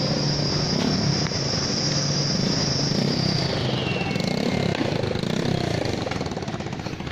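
Hino Ranger truck's turbocharged six-cylinder diesel engine running steadily under load, with a high turbo whine that glides down and fades about four seconds in.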